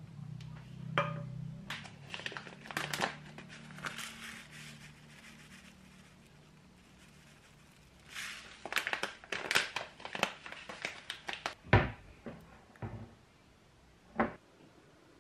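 Packaging crinkling as it is handled, in two bouts of crackles. A low hum runs through the first few seconds, and a few dull knocks come near the end, the loudest at the close of the second bout.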